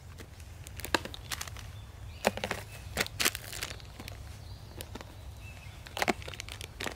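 Camping gear being handled and packed: plastic items clacking and gear rustling, with a few sharp knocks, the loudest about one, two and a quarter, and six seconds in, over a low steady rumble.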